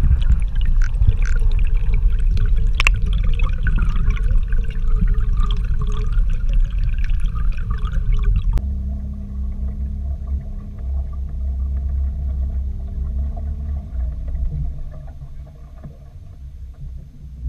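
Muffled underwater rumble and sloshing from water moving past a camera held below a river's surface, with crackling in the first half. About halfway through it changes abruptly to a steadier low hum with faint steady tones, which fades near the end.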